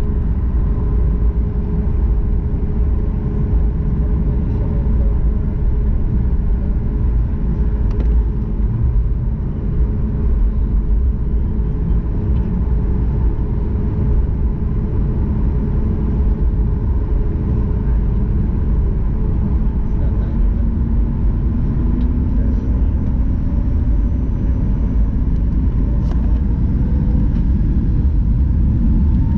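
Cabin sound of a Boeing 737 MAX 8's CFM LEAP-1B turbofans running as the jet taxis onto the runway: a steady rumble with a steady hum. In the last several seconds the tones rise as the engines begin to spool up for takeoff.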